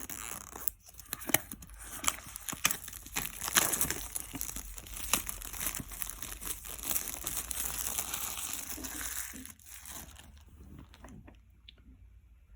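Packaging crinkling and tearing as it is handled and opened by hand: a dense run of crackles that dies down about ten seconds in, leaving a few faint clicks.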